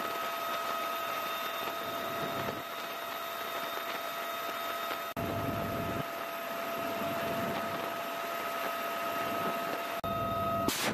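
Bell UH-1Y Venom helicopter in flight, heard from inside the cabin: a steady rush of noise with a constant high whine running through it.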